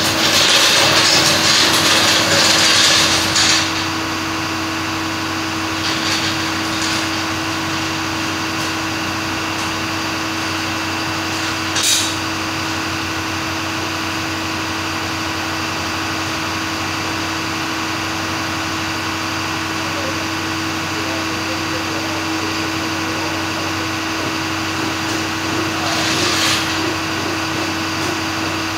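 Steady mechanical hum of shop machinery, with a loud hissing rush for the first few seconds, a single sharp clack about twelve seconds in, and a shorter hiss near the end.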